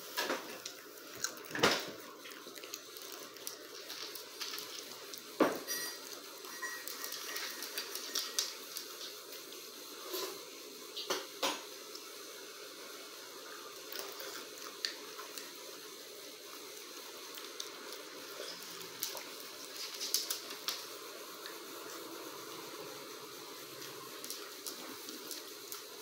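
Raccoon picking up and chewing shelled peanuts on a hardwood floor: irregular sharp clicks and crunches, the loudest about two and five seconds in.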